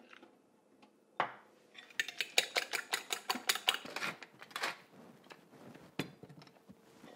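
A metal fork clinking against a glass mixing bowl while beating raw eggs, a quick run of sharp clinks after a single knock about a second in.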